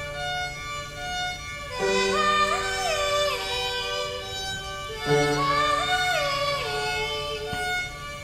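Live violin and piano music at a slow pace: held notes, with the violin playing two sliding phrases that rise and fall, one a couple of seconds in and another about five seconds in.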